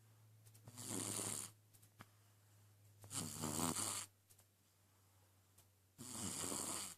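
Snoring of someone asleep: three breathy snores, each about a second long and coming every two and a half to three seconds, the middle one with a fluttering rattle. A steady low hum runs underneath.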